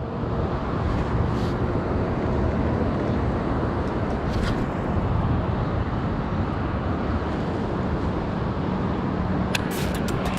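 Steady rushing outdoor noise, even and unbroken, with a few light clicks near the end.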